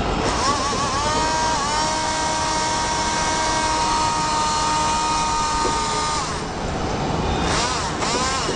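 Small electric motor of a homemade RC boat whining as it spins up, running at a steady high pitch for about five seconds, then winding down. It starts up again briefly near the end.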